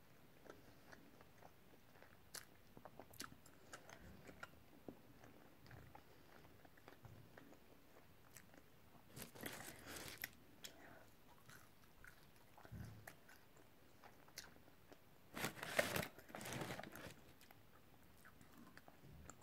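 Quiet chewing of McDonald's fries, with small mouth clicks. There are two louder noisy bursts, the first as the paper fries packet is handled about halfway through, the second a few seconds later.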